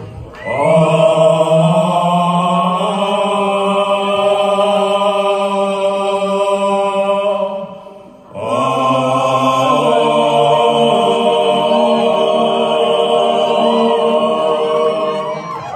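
Several male voices singing a long, chant-like held chord in harmony through a live PA. There are two long sustained phrases, the second starting after a brief dip about eight seconds in.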